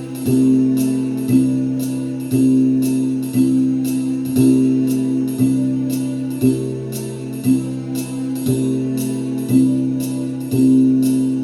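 Instrumental hip hop backing track: sustained low notes changing about once a second under a steady, sharp high percussion tick about twice a second.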